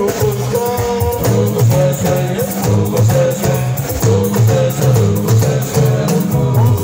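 Live band music amplified through speakers: a man sings lead into a microphone over a repeating low bass figure and percussion.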